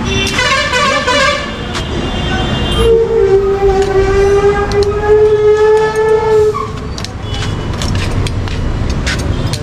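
Vehicle horns from the street traffic: a short blare about half a second in, then one long steady horn held for nearly four seconds from about three seconds in. Several light sharp clicks near the end as a spanner works the number-plate bolts.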